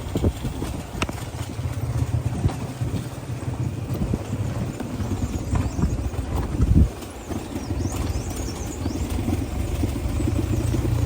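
Motorcycle engine running steadily at low revs, with a few knocks and one loud thump partway through.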